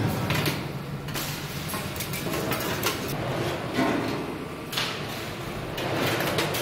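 Workshop noise: a series of short scraping sounds over a busy background.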